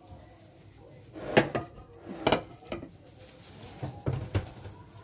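Kitchen clatter: a few separate knocks and bumps of dishes and containers being handled, the loudest about a second and a half in, another just after two seconds, and a small cluster around four seconds.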